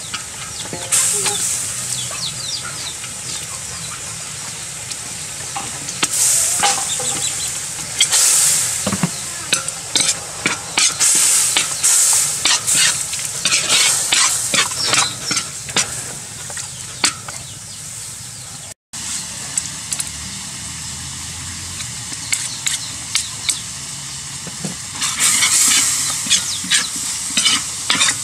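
Chicken pieces in curry sauce sizzling in a hot wok, with a metal ladle scraping and clacking against the pan in several bouts of stirring, the busiest near the end.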